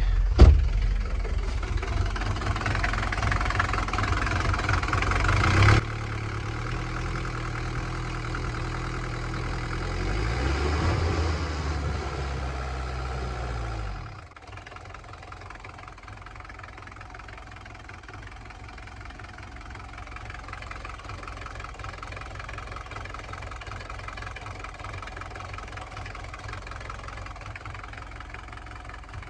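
Mercedes 240D four-cylinder diesel engine running rough just after an injector rebuild, not yet firing on all cylinders. Its speed rises and falls in the first half, then its sound drops sharply about fourteen seconds in and it settles into a quieter, steady idle.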